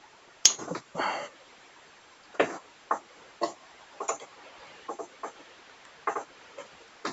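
Sharp clicks and snips of a cutting tool taking the connections off 18650 lithium-ion cells, the loudest a hard snap just after the start, with a short scrape about a second in.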